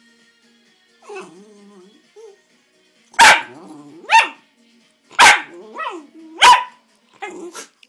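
Small dog, a miniature fox terrier, begging for food: a low whining grumble, then four sharp yappy barks about a second apart, some trailing off in a yowl, and a softer double bark near the end.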